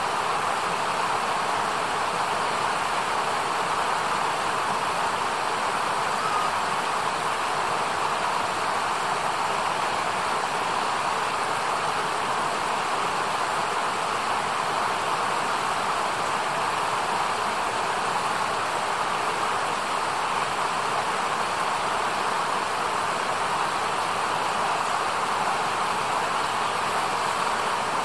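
Shallow mountain stream running over stones and rocks: a steady, even rush of water.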